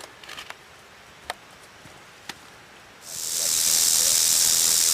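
Timber rattlesnake rattling its tail in defensive warning: a steady, high-pitched buzz that starts about three seconds in, swells over half a second and then holds. A few faint clicks come before it.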